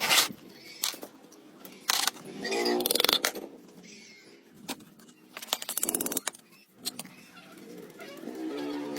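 Irregular metallic clinks, knocks and scrapes of tools and engine parts being handled during a tractor engine repair, with a few short squeaky scrapes.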